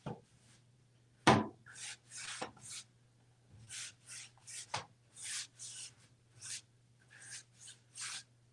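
Short swishing strokes of a spray bottle and paintbrush working wet paint on a wooden wardrobe door, about fifteen quick hisses at an uneven pace. There is a sharp knock against the wood about a second in.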